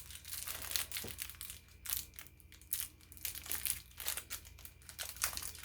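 Packaging of cabinet hinge repair plates crinkling and rustling in irregular bursts as it is handled and opened by hand.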